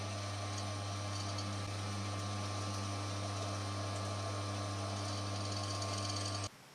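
Metal lathe running steadily with its chuck turning, a constant hum over an even mechanical whirr. It cuts off abruptly just before the end.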